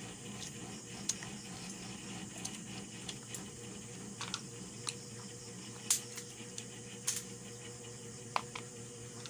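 Eating sounds: scattered small clicks, cracks and taps as food is handled and eaten, a few sharper ones in the second half, one with a short ringing clink near the end, over a steady low hum.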